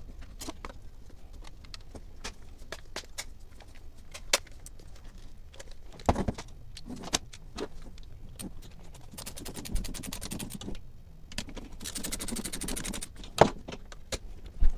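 Plastic housing parts of a hair dryer clicking and knocking as they are handled and fitted back together. There is a quick run of rapid ticks about nine seconds in and a short scraping stretch near the end.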